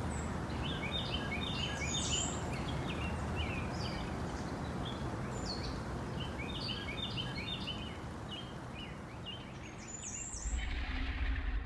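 Small birds chirping and twittering in two bouts of quick, short notes over a steady outdoor background hiss. A low rumble comes in near the end.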